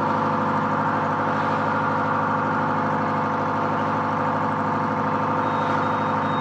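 Steel trawler's engine running steadily underway, an even drone with no change in pitch. Near the end a faint, high electronic beeping starts, repeating about two or three times a second.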